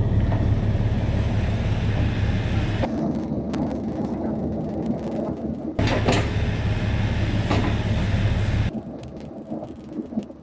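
Bobcat E50 mini excavator's diesel engine running under load while backfilling a stump hole. The engine's low rumble is heavy for stretches and eases off in between, with a few knocks.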